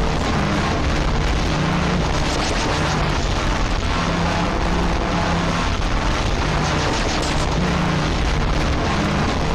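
Harsh digital noise music: a loud, unbroken wall of distorted noise, crackling with clicks, with short low droning tones that cut in and out.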